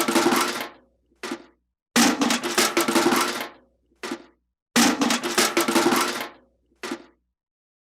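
A sudden crash with a dense rattling clatter that dies away over about a second and a half, followed by a short second clatter; the pattern is heard three times.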